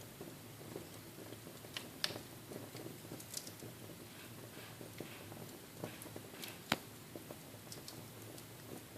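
Small wood fire in a fireplace crackling softly, with scattered sharp pops and snaps over a low steady hiss; the sharpest pops come about two seconds in and about seven seconds in.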